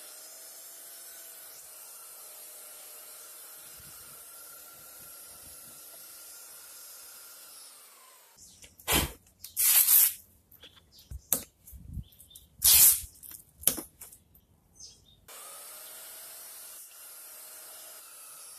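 Electric belt sander running as it sands an MDF cabinet edge, switched off about eight seconds in and winding down. Then several loud, sharp rips of masking tape pulled from the roll. The sander starts up again about fifteen seconds in.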